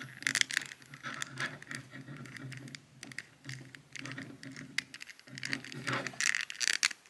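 Plastic action figure being handled and posed: many small clicks and light scraping as its shoulder joint is worked back and forth, with a louder scrape near the end.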